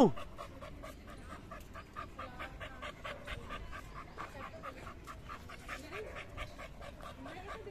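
Pit bull panting quickly and steadily.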